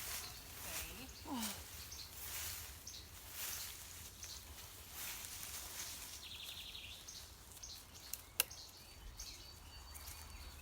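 Quiet outdoor ambience: a low wind rumble with soft rustling swells, a short fast bird trill about two-thirds of the way through, and a single sharp click a little later.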